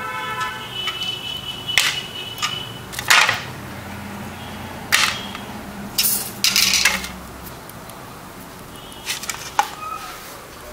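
Dishes and utensils clinking and clattering, as when food is served onto a plate: sharp knocks every second or two, the first ringing briefly, and a short run of clatter a little past the middle.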